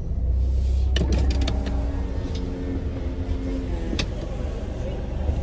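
A car idling with a steady low rumble. A click about a second in, then an electric power window motor runs for about two seconds, and a sharp click follows near four seconds.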